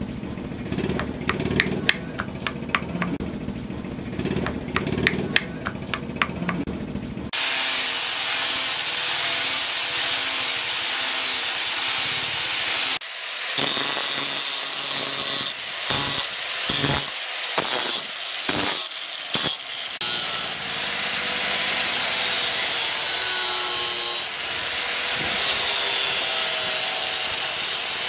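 Rapid, repeated blows of a hand tool striking a wooden handle block on a log. About seven seconds in this gives way to an angle grinder cutting steel bar: a steady, loud grinding that breaks off several times for a moment as the disc is lifted off the metal.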